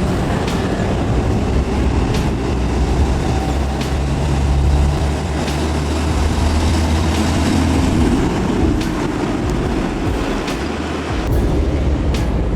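Heavy vehicle's diesel engine running under load, its low drone shifting as it works, with scattered rattles and clanks from the machine.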